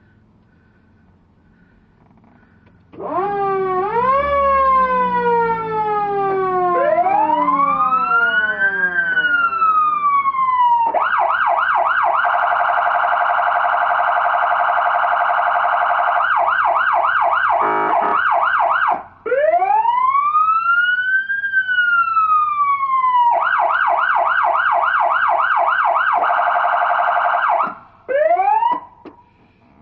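Truck-mounted emergency sirens sounding, starting about three seconds in. They run through a slow wail rising and falling in pitch, then a rapid yelp, a wail again and another yelp, ending with a few short sweeps before cutting off.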